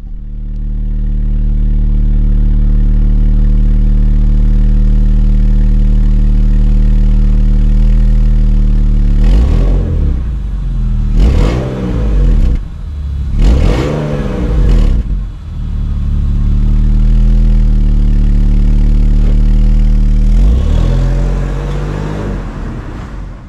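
BMW E46 323Ci inline-six on its stock exhaust, running at steady revs. In the middle it is revved up and down several times, with short sharp noises between the sweeps, then settles back to a steady note before one more rise and fall near the end. The owner says the stock exhaust has burned clear after hard driving and now sounds good.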